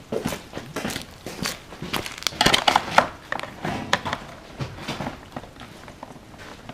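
Irregular rustling, crinkling and clicking of parts and tools being handled by hand.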